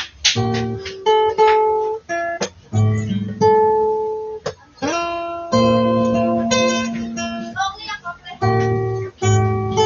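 Acoustic guitar strumming a series of chords, each struck sharply and left to ring for up to about a second before the next.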